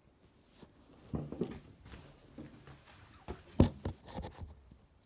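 Handling noise from a hand-held camera or phone being moved around and set against a shelf: rustling and scraping with a few knocks, the loudest a sharp knock about three and a half seconds in.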